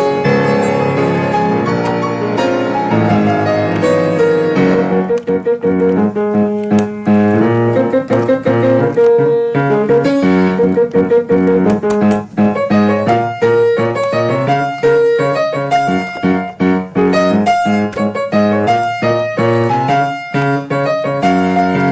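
Piano music playing a continuous run of notes.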